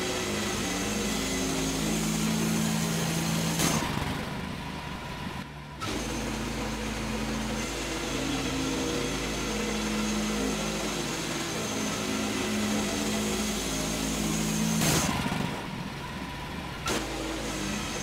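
Wood-Mizer LX55 bandsaw mill running as its head travels along the track sawing pine boards into 1x1 stickers, a steady engine-and-blade drone. About four seconds in and again near the end a short burst of noise is followed by a quieter spell of a second or two before the sound picks back up.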